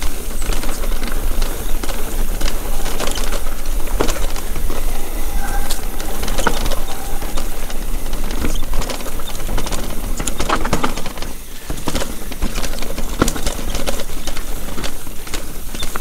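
Mountain bike riding over rocks and roots: a continuous rattle of the tyres and bike with many irregular sharp knocks, over a steady low rumble.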